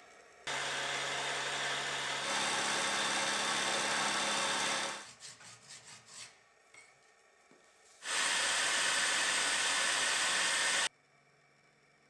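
A power tool running in two loud stretches of even, hissing noise with a low hum, each starting and stopping abruptly, with a few faint clicks in between.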